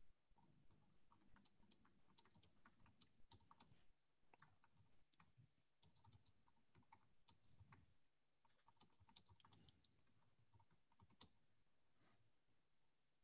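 Faint typing on a computer keyboard: irregular runs of key clicks with short pauses.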